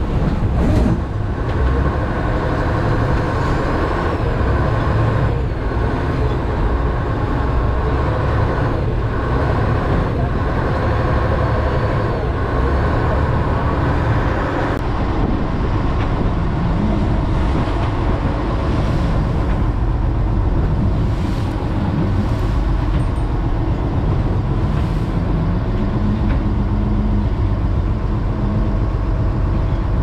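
A fishing boat's engine runs steadily under way, mixed with water rushing along the hull in rough seas. The high hiss drops away abruptly about halfway through.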